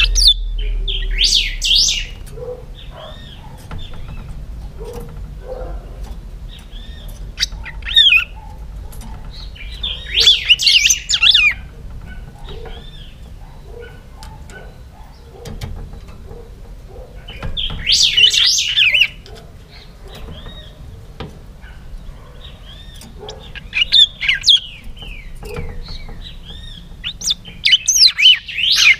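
A young hand-reared pica hueso songbird in a cage singing loud, clear phrases of a second or two each, about six of them, with fainter chirps between them.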